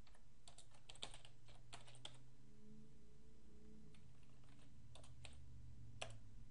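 Typing on a computer keyboard: a quick run of keystrokes in the first two seconds, then a few more keystrokes about five and six seconds in, over a faint low hum.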